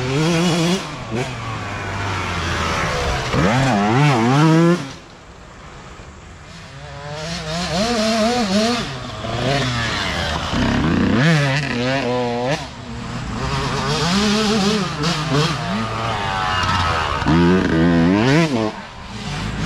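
Small dirt bike engines revving up and down as youth riders pass on a trail, about five passes in turn, each a burst of quickly rising and falling revs as the throttle is worked.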